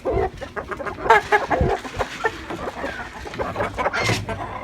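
A flock of hungry chickens clucking in many short, overlapping calls while waiting to be fed.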